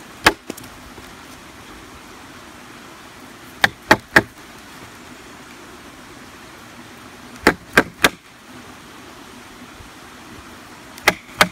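A wooden baton striking the spine of a full-tang bushcraft knife, driving the blade down through a stick to chop its end off. Sharp wooden knocks come in quick groups of two or three, a few seconds apart.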